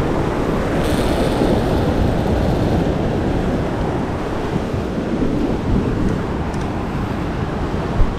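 Steady wind rumbling on the microphone over the wash of ocean surf.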